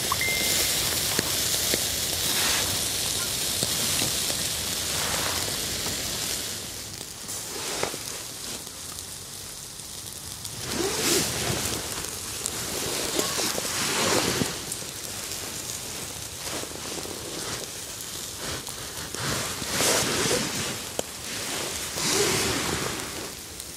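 Small wood-and-charcoal fire crackling and hissing, with irregular rustling and handling noises coming and going.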